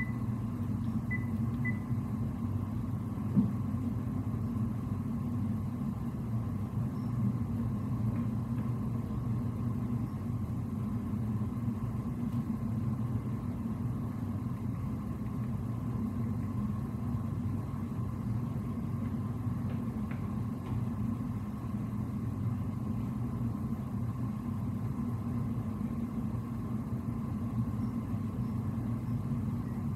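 Steady low hum and rumble of a ship's bridge underway, from the vessel's machinery and ventilation. There is one sharp click about three seconds in.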